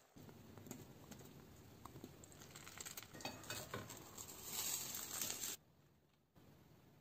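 Omelet cooking in a frying pan: faint sizzling with small clicks and scrapes of a utensil against the pan, growing louder before it cuts off about five and a half seconds in.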